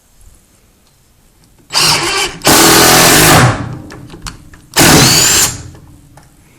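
Porter-Cable 20V cordless impact driver driving a 3-inch drywall screw into a 2x4 in three bursts: a short one, a long loud run of about a second whose pitch falls as the motor stops, then a final short burst.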